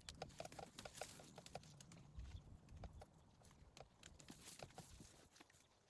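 Near silence, with faint, irregular clicks scattered through it, most of them in the first second or two.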